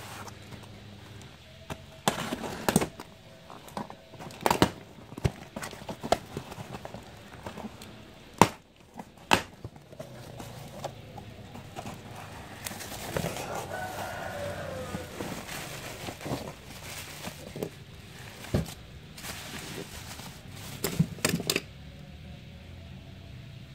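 Cardboard carton being cut and pried open by hand and its flaps pulled apart: a string of sharp knocks and scrapes of cardboard, with plastic toy figures rattling as they are taken out near the end. A drawn-out call with falling pitch rises over it about midway.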